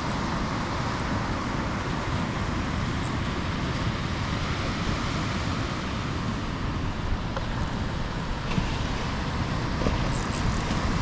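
Steady rushing noise of wind buffeting the microphone, with surf breaking on the beach. A few faint ticks come in the last few seconds.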